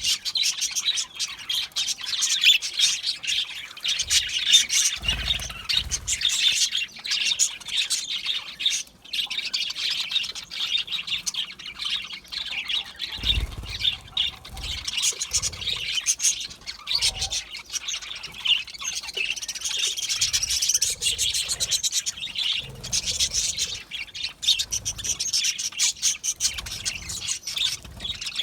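A flock of budgerigars chirping and warbling continuously, many birds at once, with occasional squawks. A few dull low thumps come through, about five seconds in and again near the middle.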